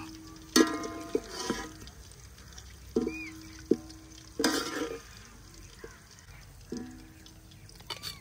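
A cooking utensil knocks and scrapes against a metal tasla as fried beef is lifted out of the pan. There are about nine knocks and scrapes, spread irregularly, and several leave the pan ringing briefly.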